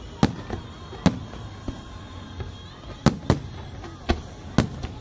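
Fireworks display: aerial shells bursting in a string of sharp bangs, about seven in five seconds, each trailing off in a brief low rumble.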